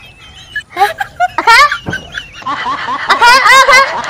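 High-pitched, wavering laughter in several short bursts, loudest near the end.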